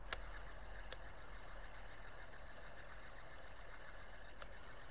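Faint, steady background hiss, broken by three short, sharp clicks: one at the very start, one about a second in and one near the end.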